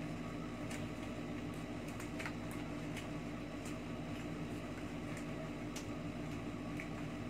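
Steady low mechanical hum, with a few faint, scattered clicks.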